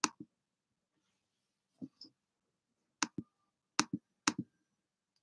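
Computer clicking: about five pairs of short, sharp clicks, unevenly spaced, with near silence between them.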